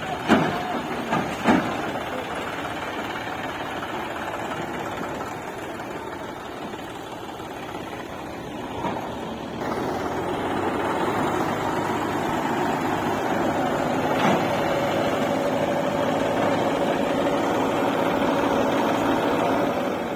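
Diesel engines of a JCB 3DX backhoe loader and a John Deere tractor running together while soil is loaded, with two sharp knocks in the first two seconds. About halfway through the engine sound gets louder and holds steady.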